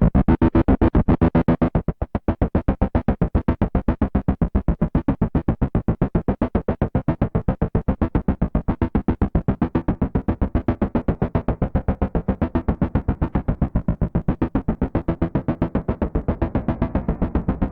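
Moog Matriarch analog synthesizer playing a fast, even run of repeated short notes, several a second. About two seconds in the tone turns darker as the filter closes, and near the end the notes start to blur into a continuous tone underneath.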